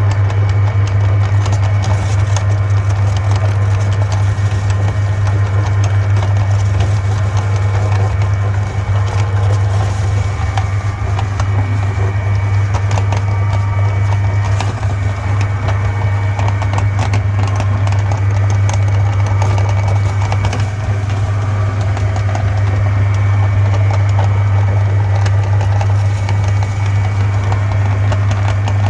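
Meat grinder running steadily with a constant low motor hum, crackling as chocolate-iced Antonia cakes are ground through it. The load eases briefly a few times.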